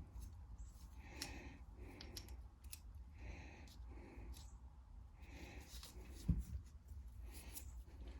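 Faint handling of small carburetor parts: light clicks and a run of soft rubbing or scraping strokes about one every second, with a dull thump a little over six seconds in.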